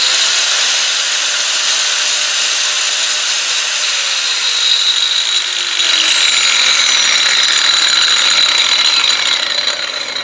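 DeWalt angle grinder running with a steady high whine, working again now that its worn carbon brushes have been replaced. Near the end it starts to wind down.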